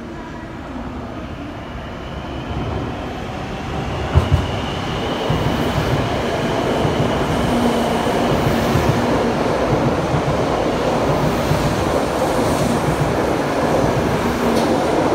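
Shinkansen train, the 923-series Doctor Yellow, moving through the station, its sound building steadily louder as its motor whine climbs slightly in pitch. There are two sharp clacks about four seconds in, and running rumble and rail noise throughout.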